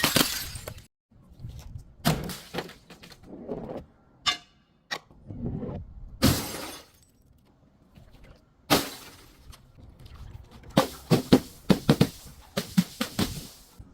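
Glass bottles breaking and being crushed: several separate shattering crashes and crunches with short pauses between them, then a quick run of sharp cracking snaps near the end.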